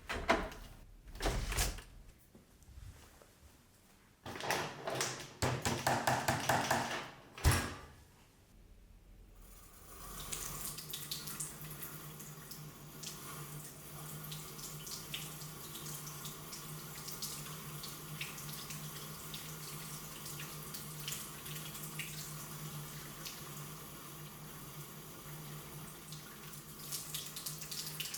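Knocks and rattles of the Dyson V11 filter unit being handled for the first several seconds. Then, from about ten seconds in, a cold tap runs steadily, its water splashing over the filter unit as it is rinsed.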